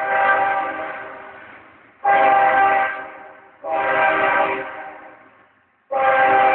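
Diesel locomotive air horn sounding a chord of several tones in repeated blasts as the train approaches: one blast already sounding, then three more starting about two, three and a half and six seconds in, each trailing off before the next.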